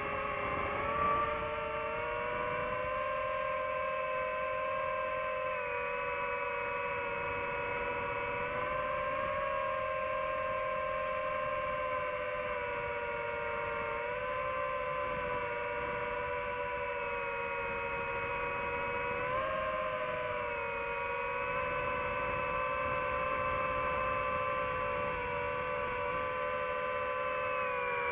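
DJI FPV drone's motors and propellers whining steadily, the pitch shifting slightly up and down every few seconds as the throttle changes in flight.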